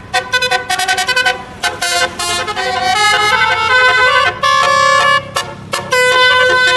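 Basuri (telolet) multi-trumpet bus horn playing a melody. It starts with a run of short, quick notes, then moves to longer held notes.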